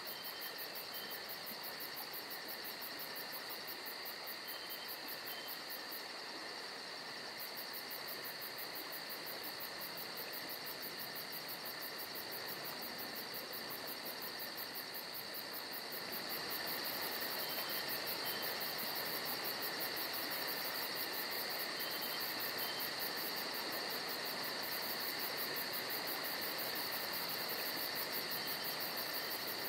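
Steady chorus of chirping insects, a fast high trill over a constant hiss, getting a little louder about halfway through.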